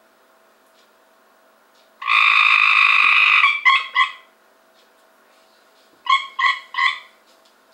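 Cope's gray tree frog calling: a loud trill of about a second and a half starting about two seconds in, trailing off into two short notes, then three short calls in quick succession near the end.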